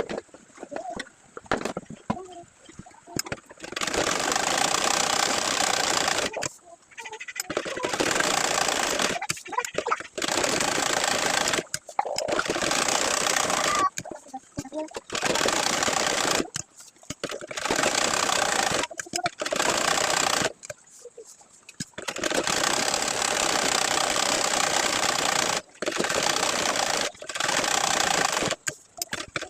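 Sewing machine stitching in stop-start runs of one to three seconds with short pauses between them, after a few seconds of faint clicks.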